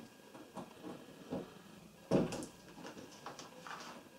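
Small clicks and rustles of multimeter crocodile-clip test leads being unclipped from one washing machine inlet solenoid valve's terminals and moved to the next, with one louder clatter about two seconds in.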